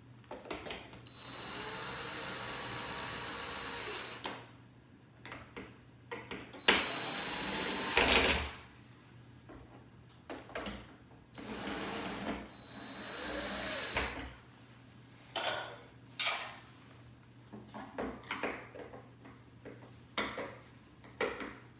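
Power drill driving the mounting screws of an in-ceiling speaker: three runs of the motor with a steady whine, the first about three seconds long, the next two about a second and a half each, the middle one loudest and ending in a few sharp knocks. Short handling clicks and taps come between and after the runs.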